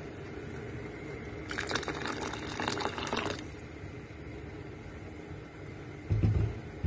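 Tomato-based broth simmering in a pot, bubbling and popping for about two seconds over a steady low hum. A dull low bump comes near the end.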